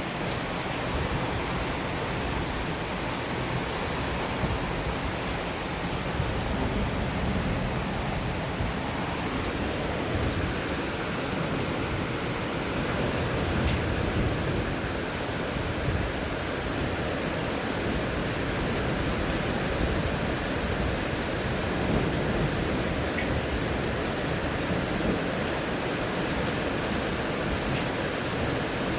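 Steady rain falling in a thunderstorm, with scattered drop ticks and low rumbles of thunder now and then.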